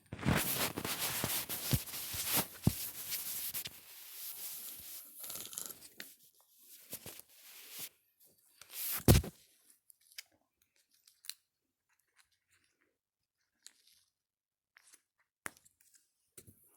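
Crackling, crunching rustle of something being torn or crinkled for several seconds, then one loud knock about nine seconds in, followed by a few faint clicks.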